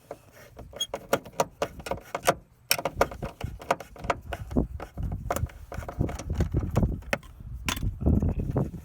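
Irregular clicking and metallic rattling of hand tools and car interior trim being handled while a trim screw is worked out, with handling knocks and rubbing that get heavier in the second half.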